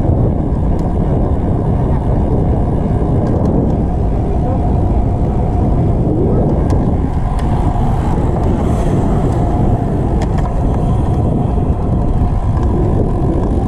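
Steady, loud low rumble of vehicle noise.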